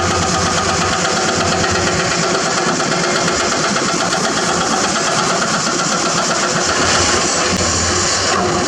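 Hydraulic excavator's diesel engine running steadily, a little louder and brighter near the end.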